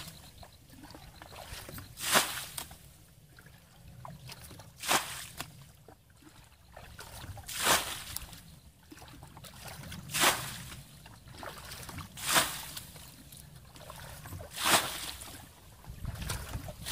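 Water splashing as a bucket is repeatedly dipped into a shallow muddy ditch and the water thrown out: bailing the ditch dry to get at the fish. There is one splash about every two and a half seconds, six in all.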